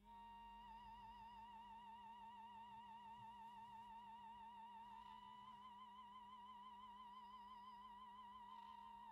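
Faint background music: a single high note held with a fast, even vibrato, stepping slightly higher about five seconds in, over a steady low hum.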